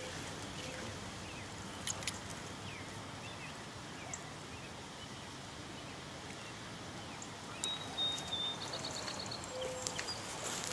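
Steady outdoor background hiss with faint bird chirps, including a short rapid bird trill about eight and a half seconds in, and a few soft clicks.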